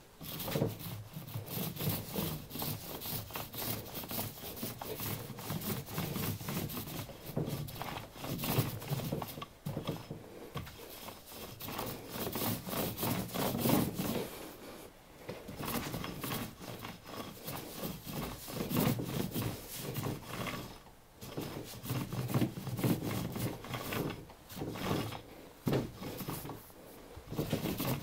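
Paint roller on a long handle rolling wet white paint over a large sheet of paper, a rasping rub that swells and fades with each stroke, with a few short breaks.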